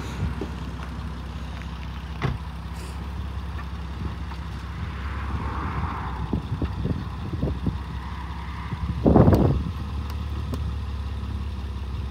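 2005 Honda Odyssey's 3.5-litre V6 idling with a steady low drone, its exhaust rusted through with a hole just past the manifold. A few light knocks sound over it, and a louder thump comes about nine seconds in.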